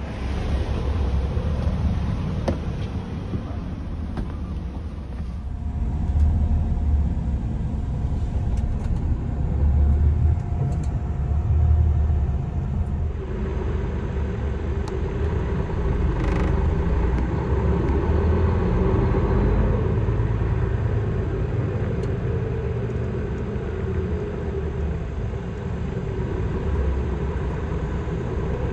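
Low rumble of a road vehicle on the move, with a steady engine hum that sets in about halfway through.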